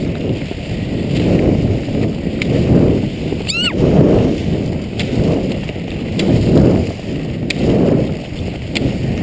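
Salomon cross-country skis swishing over snow in a steady stride, swelling about once a second, mixed with wind rumble on the microphone and a few sharp clicks.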